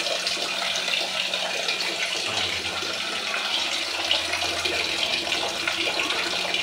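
Steady rush of running water with a low hum underneath.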